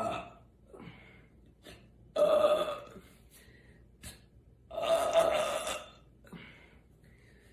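A woman belching loudly: the tail of one burp right at the start, then two long burps, one about two seconds in and one about five seconds in, each lasting most of a second.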